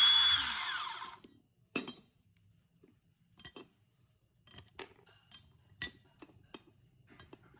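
Makita 18V cordless hydraulic steel cutter's motor running with a whine, stopping about a second in. After that come scattered light metallic clinks and taps.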